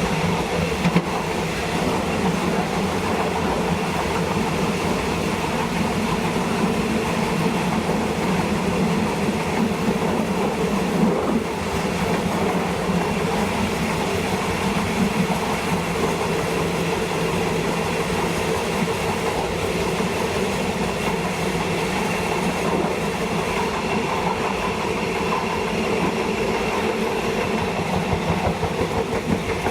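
State Railway of Thailand train running along the track: a steady rumble of wheels on rails, with a constant droning hum underneath.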